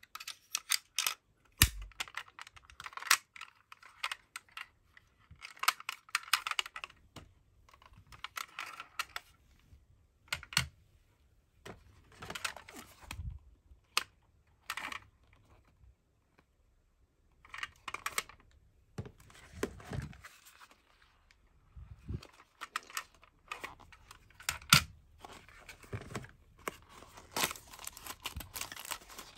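Hands handling small toy cars and their packaging: irregular clicks and taps of a diecast toy ambulance's doors and plastic parts, and the rustle of a cardboard toy box and its plastic wrapping, in short bursts with brief pauses. The crinkling grows denser near the end as the box is opened.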